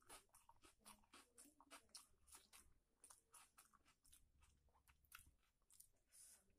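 Faint, wet eating sounds: a quick, irregular run of soft clicks and smacks from chewing a mouthful of chicken curry and rice, along with fingers mixing rice and curry on the plate.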